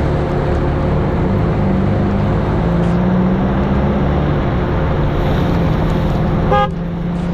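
Steady engine and road noise from a car driving. A single short horn toot sounds near the end.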